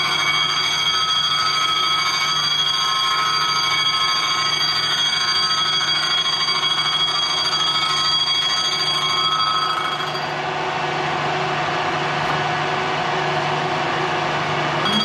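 Metal-working machine tool running with a steady whine of several pitches. About ten seconds in the whine drops away and a rougher, hissing noise takes over, and the whine comes back near the end.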